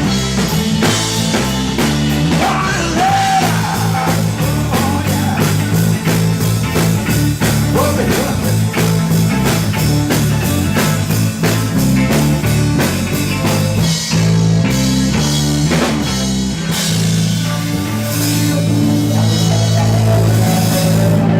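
Live rock band playing, with a drum kit keeping a steady beat under bass and guitar.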